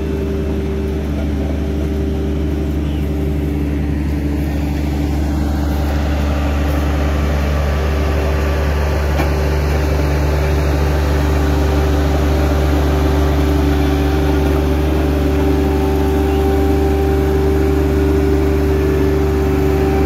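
Diesel engines of road-construction machines, a Hamm HD 13 tandem roller and an asphalt paver, running steadily: a loud, deep, unbroken hum with a steady higher drone on top, growing slightly louder.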